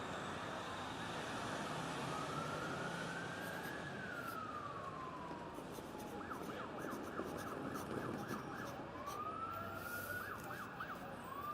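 Emergency vehicle siren sounding over steady city traffic noise. A slow wail rises and falls, then about halfway through it switches to a fast yelp of roughly four cycles a second, and near the end rising wails start again.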